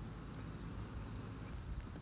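Outdoor ambience on a boat: low wind rumble on the microphone under a steady high-pitched buzz with faint regular ticks, which cuts off about one and a half seconds in.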